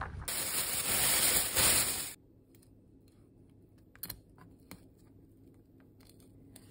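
A loud, even rushing hiss for about two seconds, then it cuts off. After that come faint clicks and scrapes of a kitchen knife filleting a small fish on a cutting board.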